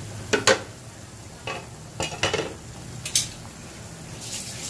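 Several sharp clinks and knocks of kitchenware against a pan. The loudest pair comes about half a second in, with more at about two and three seconds. Underneath, the chicken tinola broth bubbles at the boil in the uncovered pan, its hiss growing near the end.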